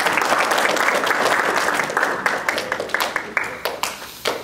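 A group of young children applauding, dense clapping at first that thins to scattered separate claps over the last couple of seconds and dies away.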